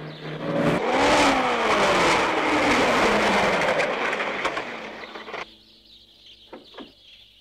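Car engine and road noise, the engine note rising briefly and then falling steadily over about four seconds as the car slows to a stop. The engine then idles quietly, with two short clicks near the end.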